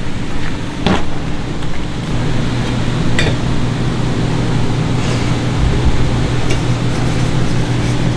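A steady low hum of bakery machinery, with a few short sharp clinks and knocks as a stainless steel bowl is handled on a scale and brushed with oil.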